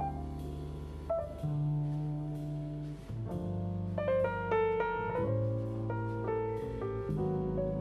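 Live jazz: a grand piano playing over long double bass notes. About three seconds in, the piano moves into a faster run of higher notes.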